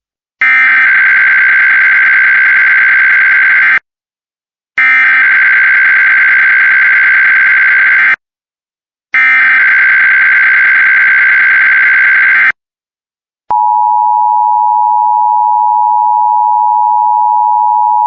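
Emergency Alert System test signal: three identical bursts of the warbling digital data header (SAME), each about three and a half seconds with a short gap between, then a steady attention tone that begins about 13 seconds in.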